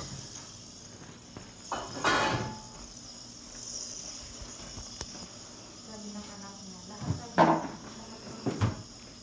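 A steady high-pitched hiss, with brief rustles and bumps of a phone being handled: one about two seconds in and two sharper knocks near the end. A faint voice is heard around the middle.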